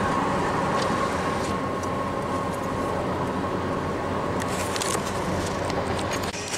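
Steady road noise inside a car's cabin as it cruises on a concrete motorway: tyre rumble with a thin steady tone and a few faint ticks. The sound changes abruptly near the end.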